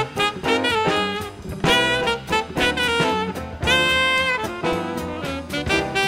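Small jazz band recording: an alto saxophone plays a quick bebop line over piano, bass and drums.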